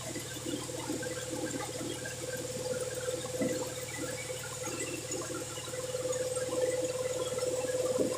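Band sawmill running: a steady motor hum and blade tone with an irregular crackling, gurgling texture over it.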